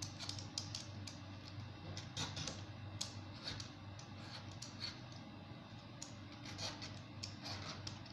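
Hand-held vegetable peeler scraping strips of green skin off watermelon rind: an irregular series of short scraping strokes and light clicks. A steady low hum runs underneath.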